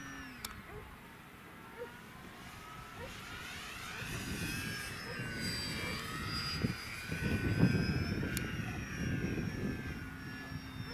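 Radio-controlled model airplane's motor and propeller: the steady whine drops away as the throttle is cut at the start. A few seconds in, a whine rises and then falls in pitch as the plane makes a low pass. A loud, irregular low rumble runs through the second half.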